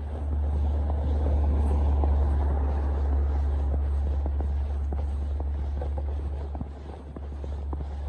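Footsteps crunching in snow under a low rumble that swells over the first couple of seconds and eases off after about six seconds.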